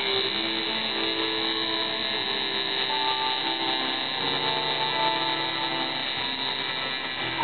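Electric tattoo machine buzzing steadily while the needle draws line work into skin, with guitar music playing alongside.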